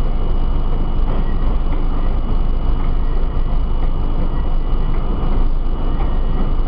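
R32 subway train running along the track, heard from inside the front car: a loud, steady rumble of wheels on rail with occasional clicks and a faint steady high whine.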